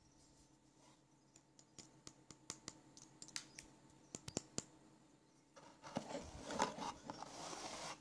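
Handling noise from an AloneFire X901UV UV torch and its cardboard box: scattered light clicks and taps of fingers on the torch's body and pocket clip, then about two seconds of louder rubbing and scraping near the end as it comes out of the box.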